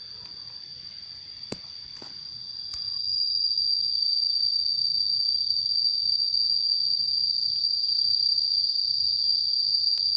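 Steady, high-pitched drone of insects, growing louder about three seconds in, with a few faint clicks early on.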